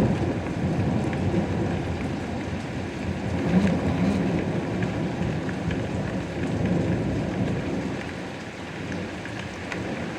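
Steady rain with scattered drop patters and a low rumble of thunder that fades away over the last couple of seconds.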